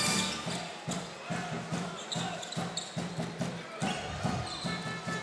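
Basketball dribbled on a hardwood court, regular bounces about two a second, with brief high shoe squeaks and arena crowd murmur; arena music cuts off at the start.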